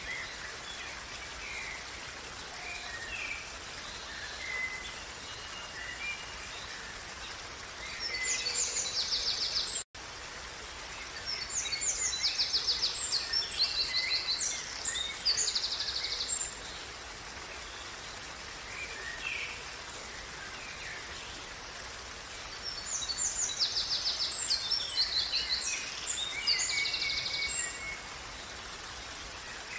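Steady rush of a running stream, with songbirds singing in three loud bouts of fast trills and rapid repeated notes and softer chirps between them. The sound cuts out for an instant about ten seconds in.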